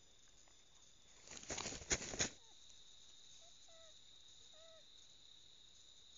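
Steady night chorus of crickets, broken about a second in by a loud burst of rustling with a few sharp snaps that lasts about a second. Near the middle come two faint, short pitched calls.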